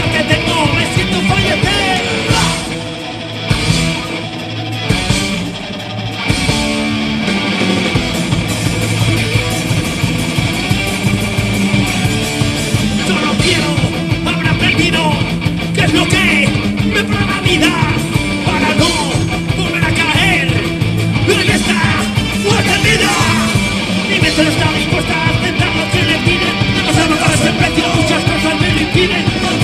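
Punk rock band playing live: electric guitars, bass guitar and a drum kit. A few seconds in, the low end and drums drop back briefly, and the full band comes back in about seven seconds in.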